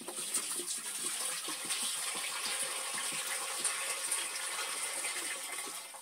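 Water pouring steadily from a plastic jerrycan into a clay water pot, running through a cloth laid over the pot's mouth as a sieve.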